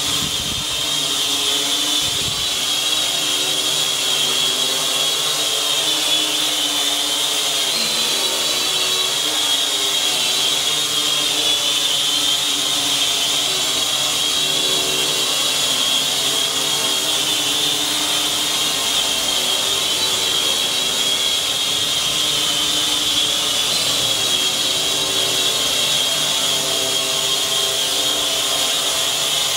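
Cheerson CX-33S tricopter's motors and propellers running as it hovers: a steady high-pitched whine over a lower hum, the pitch wavering slightly.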